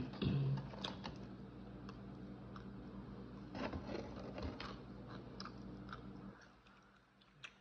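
A person chewing and biting into pieces of gizzard, with scattered short clicks and crackles. A low steady hum underneath stops about six seconds in.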